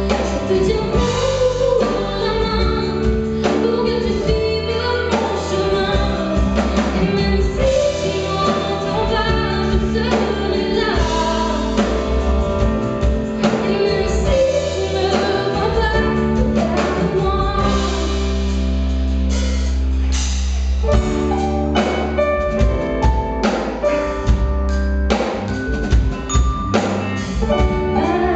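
A woman singing a song live into a handheld microphone, backed by a band on keyboards, electric guitar and drums.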